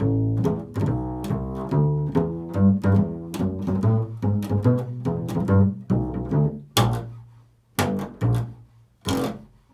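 Upright double bass played pizzicato: a busy run of plucked low notes, thinning after about six seconds to a few single notes spaced a second or so apart.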